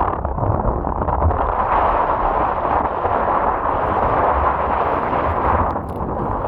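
Strong blizzard wind buffeting the microphone: loud, steady wind noise with heavy low rumbling, easing slightly near the end.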